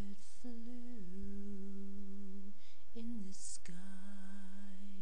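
A voice humming a slow tune in long held notes, with the pitch stepping down about a second in and a short breath between phrases.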